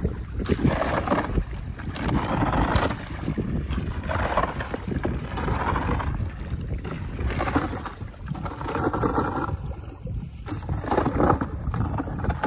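Shallow water sloshing and splashing in repeated surges about every second or so as a wader moves a bucket through it, over a steady rumble of wind on the microphone.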